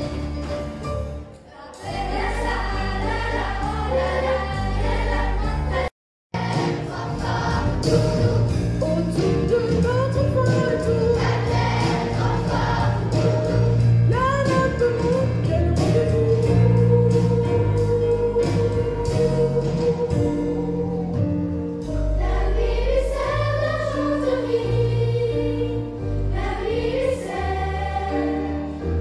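Children's choir singing over instrumental accompaniment, the opening part sung as a round. The sound cuts out for a moment about six seconds in, then the choir carries on with another song.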